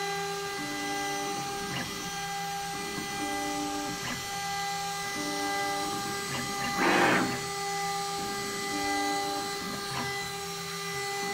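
Stepper motors of a DIY CNC router whining as the machine's axes make short repeated moves, about one every second or two, over a steady electrical whine. A brief rush of noise comes about seven seconds in.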